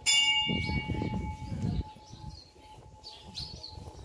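A metal bell struck once at the start, ringing with a clear tone and fading over about two seconds, with a dull low rumble under it.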